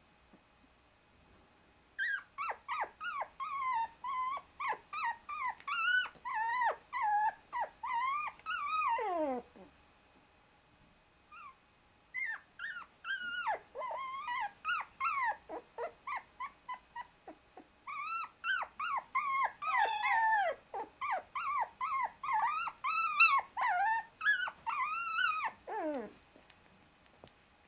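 A 24-day-old Shiba Inu puppy squealing and whimpering in panic at being pinned under its littermates. The cries come about two a second in three bouts, and the first and last bouts each end in a long falling whine.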